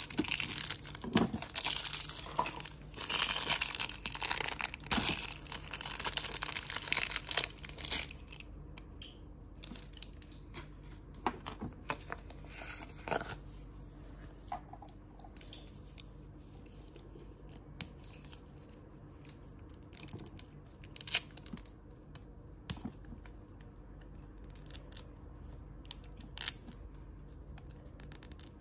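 Plastic toy wrappers crinkling and tearing as they are pulled open, for the first several seconds, then scattered small clicks and taps of little plastic toy pieces being handled and set down on a wooden tabletop.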